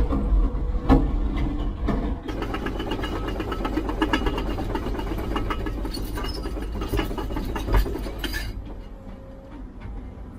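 Heavy construction machine's engine running, with a few knocks near the start and several seconds of rapid metallic clattering.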